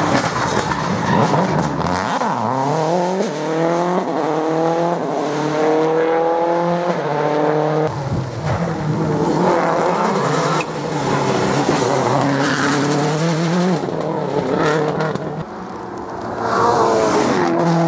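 Rally cars driven flat out on a tarmac stage, their engines revving hard; the engine note climbs steeply in pitch as a car accelerates away. The sound changes abruptly a few times as one car gives way to another.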